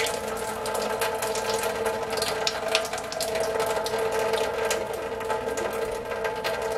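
A thin stream of rinse water draining out of an upturned mason jar through a plastic sprouting lid, splattering steadily into a metal kitchen sink, over a steady hum.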